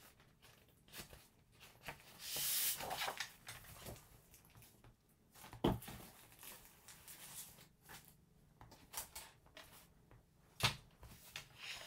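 Sheets of designer paper rustling and sliding as they are handled, with two sharp taps, one about six seconds in and one near the end.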